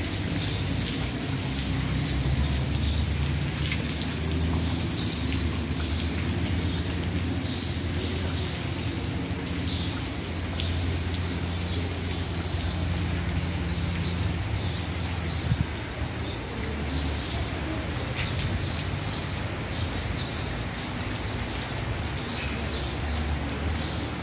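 Heavy rain falling steadily on wet cobblestones and market tarps, with a low steady rumble of road traffic underneath.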